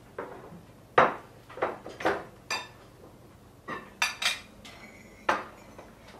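Forks and knives clinking and scraping against plates and a wooden serving platter as people eat, about eight separate knocks, one of them followed by a brief ring.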